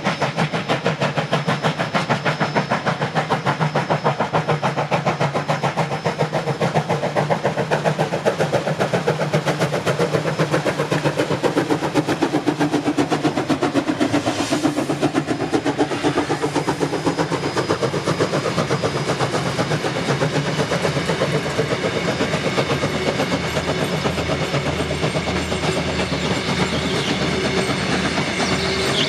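Queensland Railways BB18¼ class 4-6-2 steam locomotive working past with rapid, steady exhaust beats, followed by its passenger carriages rolling by. Near the end the carriage wheels click rhythmically over the rail joints.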